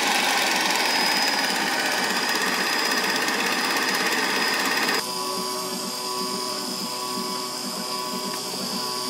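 Motor-driven potter's wheel running steadily. About halfway through the sound drops abruptly and becomes quieter, continuing as a steady hum.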